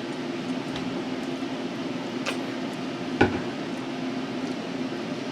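Steady room hum, like a fan or air conditioner, with a few light clicks and one sharp knock a little past three seconds in, typical of food, dishes or a utensil being handled at a table.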